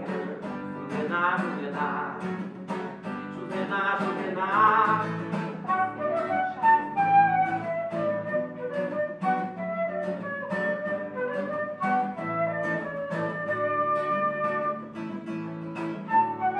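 Transverse flute playing a melody over a strummed acoustic guitar: an instrumental break between sung verses.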